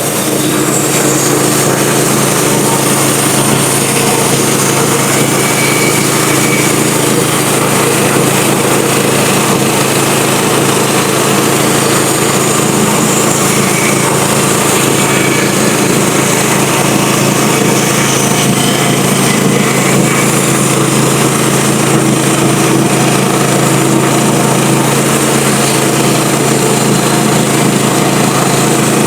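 Wood-Mizer LT15 portable band sawmill running steadily while sawing a pass through a log, with its engine hum under the noise of the blade cutting.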